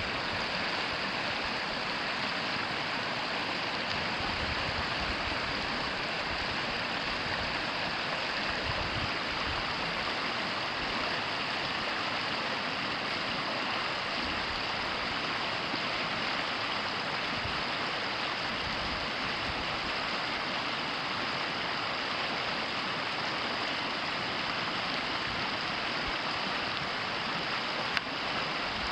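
Steady rushing of the Ōtakine River's flowing water, with a single sharp click near the end.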